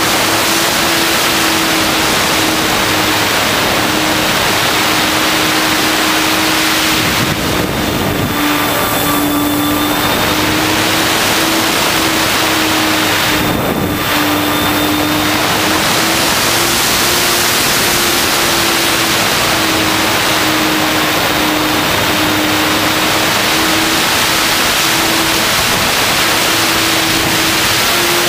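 RC model airplane's motor and propeller humming at a steady pitch that wavers a little, heard from the onboard camera under a constant rush of wind over the microphone. The rushing dips briefly twice, about 8 and 14 seconds in.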